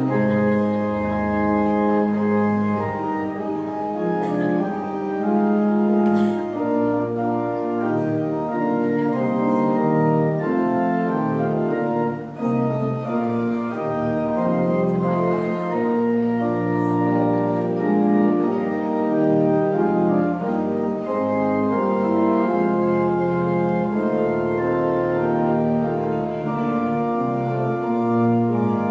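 Organ playing sustained, slowly changing chords: the postlude at the close of the service.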